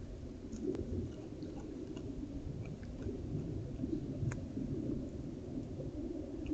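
Low, steady rumble from a trail camera's microphone, with scattered faint clicks and ticks.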